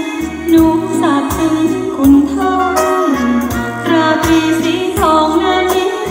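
A song with a singer over a steady beat of bass notes and drum hits, played from a MiniDisc on an Onkyo FR-X9A CD/MD tuner amplifier through loudspeakers.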